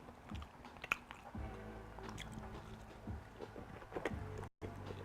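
A person chewing and biting food close to the microphone, with many short wet mouth clicks. The sound cuts out briefly near the end.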